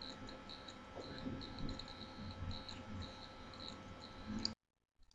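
Faint room tone from an open microphone, a steady low hiss with an intermittent faint high whine, cut off abruptly to dead silence about four and a half seconds in.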